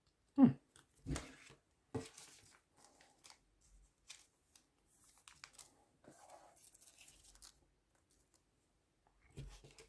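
A trading card pack wrapper being torn open and crinkled: a few short sharp rips in the first two seconds, then fainter rustling of the wrapper and cards.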